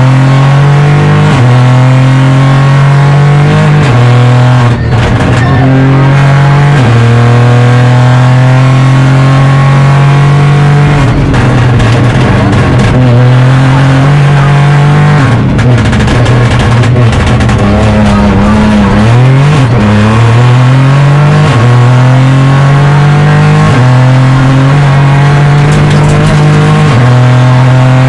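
Opel Corsa Rally4's turbocharged three-cylinder engine driven hard, heard from inside the cabin. Its note holds high and then steps in pitch with repeated quick gear changes. In the middle there is a more broken stretch of lifting off and changing down before it pulls up through the gears again.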